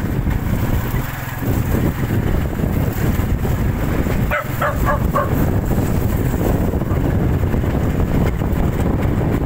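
Wind rumbling on the microphone, with a quick run of a few short dog barks about four seconds in.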